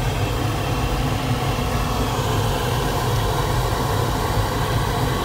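Steady wind noise of air rushing past the cockpit of a Duo Discus glider in flight: an unbroken low rumble with a hiss above it.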